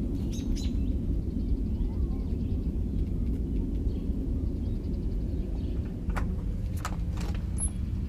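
A steady, deep rumble from the sky of unknown origin, with birds chirping faintly and a few short clicks near the end.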